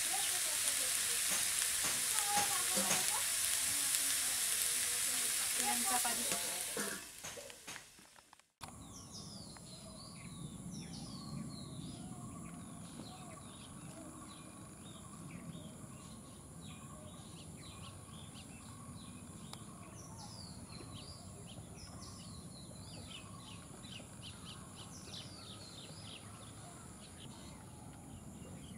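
Mixed vegetables sizzling in hot mustard oil in a steel wok, with a few sharp crackles; the sizzle fades out about seven seconds in. After a short gap, many birds chirp in quick short calls over a steady high-pitched tone.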